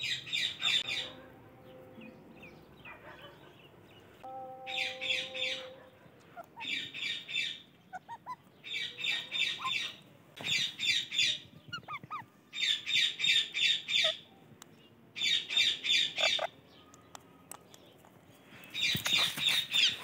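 Parakeets calling: runs of rapid, high-pitched squawking notes, each run about a second long, repeated about eight times with short pauses between.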